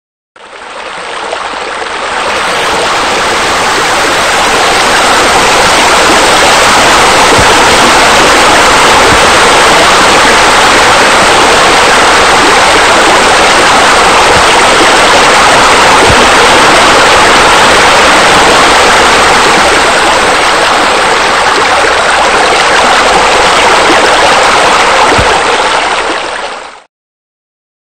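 Steady rush of running, splashing water, as from a pool waterfall. It fades in over the first two seconds and cuts off abruptly near the end.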